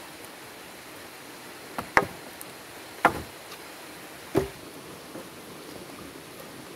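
A machete chopping into a wooden branch: four sharp, unevenly spaced knocks, two close together about two seconds in, one a second later and one more about four seconds in, over a steady background hiss.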